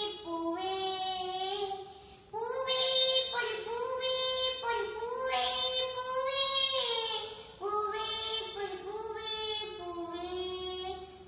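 A young girl singing a Malayalam song solo, in long held notes, with short pauses for breath about two seconds in and again near eight seconds in.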